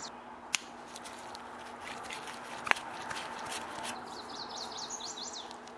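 Faint handling sounds of a screwdriver working a jet out of a small-engine carburetor: two light metal clicks over a low steady hum. A quick run of high chirps comes in the background near the end.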